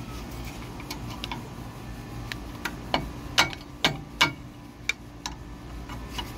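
Sharp metal clicks and taps, about a dozen at irregular spacing, as a screwdriver pries and knocks at stuck brake caliper hardware.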